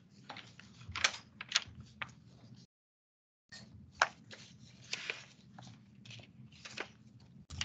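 Quiet room noise with a low hum and scattered small clicks and rustles, cutting out completely for just under a second in the middle.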